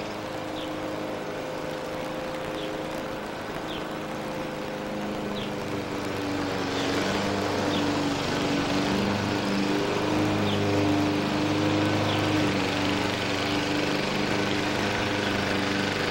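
An engine running steadily in the background, growing louder about six seconds in. Faint short high chirps come every second or so.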